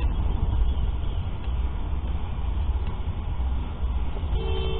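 Steady low rumble and tyre hiss of a car driving on a wet freeway, heard from inside the cabin. Near the end a car horn sounds, a steady two-tone blare of under a second.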